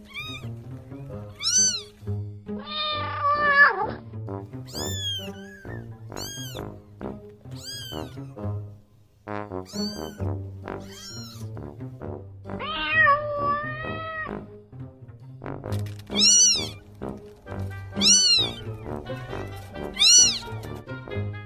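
Cats meowing, a dozen or so separate high calls that rise and fall in pitch, a few of them longer and drawn out, over steady background music.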